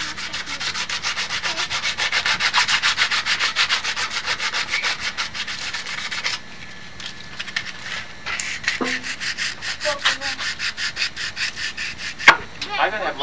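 Wooden walking stick being hand-sanded with rapid, even back-and-forth scraping strokes, smoothing the wood so it won't splinter. The strokes stop about six seconds in and start again about two seconds later; a single sharp click sounds near the end.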